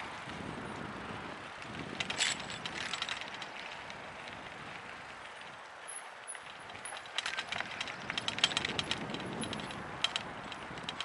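Mountain e-bike rolling down a dirt trail: a steady rush of tyre and trail noise, with bursts of rapid clicking and rattling over bumps about two seconds in and again from about seven to nine seconds.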